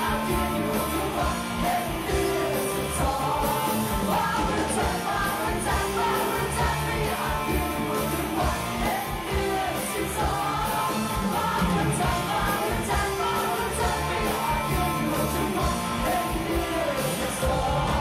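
Live band music with a male singer singing into a microphone over a steady rock-pop beat.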